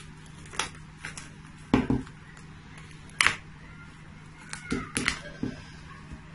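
Plastic cling film being pulled off its roll, stretched and cut: a handful of scattered crinkles and sharp clicks.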